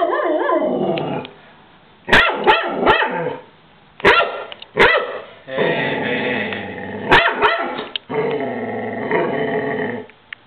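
Dog barking in pairs of sharp barks, between them long drawn-out growls.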